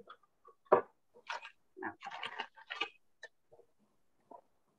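Kitchen handling noises while jam goes into a plastic piping bag: a sharp knock about a second in, then a run of short rustling and scraping sounds.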